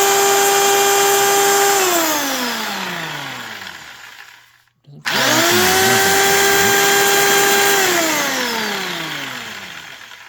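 Sears Craftsman belt sander's electric motor running at full speed with a steady whine, then switched off and winding down with a falling pitch; it is switched on again about five seconds in and winds down once more near the end. These are test runs with the housing off, and the belt stays on its pulleys.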